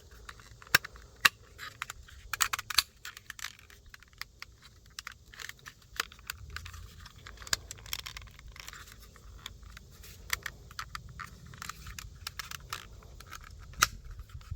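Irregular hard plastic clicks, taps and scrapes as a 2007 Chrysler Aspen's power-window master switch is pushed into its plastic trim cover and snapped into the cover's locking tabs.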